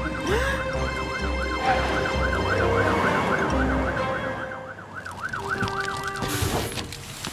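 Cartoon fire truck's siren sound effect, wailing quickly up and down about three to four times a second. It stops shortly before the end.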